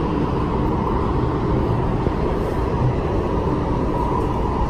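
MTR West Rail Line train running, heard from inside the carriage: a steady rumble of wheels on track with a faint steady whine above it.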